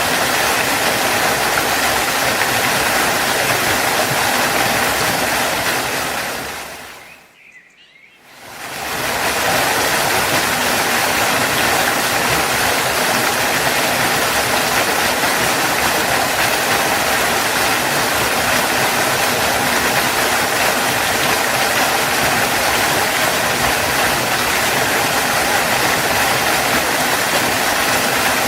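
Steady rushing noise of a waterfall. It fades out about seven seconds in to a short lull of a second or two, then fades back in.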